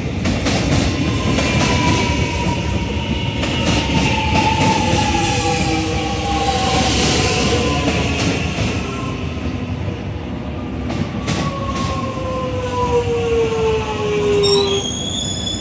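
Melbourne suburban electric train running through, with rumble and clicks and a motor whine that slowly falls in pitch. Near the end a high squeal of several tones sets in.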